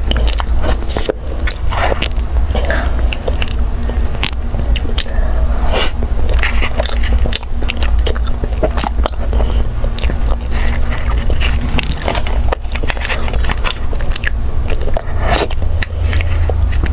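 Close-miked eating sounds of a soft, creamy custard dessert taken by spoon: irregular wet smacks, chewing and licking, with spoon clicks against the cup, over a steady low hum.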